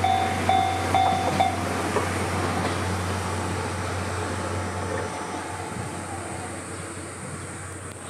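Japanese railway level-crossing alarm ringing its repeating electronic bell about twice a second, then stopping about one and a half seconds in as the barrier lifts: the train has cleared the crossing. Under it, the steady rumble of the steam-hauled passenger train running away, fading gradually.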